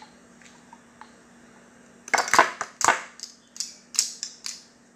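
Measuring spoon scooping honey Dijon mustard from a jar and scraping and tapping it into a glass measuring jug: a few faint clicks, then about two seconds in a quick run of sharp scrapes and knocks, several to a second.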